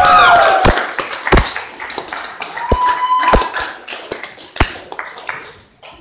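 Concert crowd noise dying away as the music stops, with scattered sharp claps and knocks and a short whistle about three seconds in.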